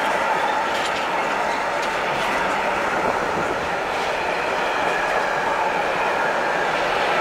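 Container flat wagons of a freight train rolling past: a steady noise of steel wheels on the rails, with a few faint clicks about a second and two seconds in.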